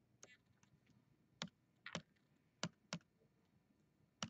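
Faint, sparse clicking at a computer, about seven separate sharp clicks spread over four seconds, a few in quick pairs, as pen settings are changed in a drawing program; near silence between them.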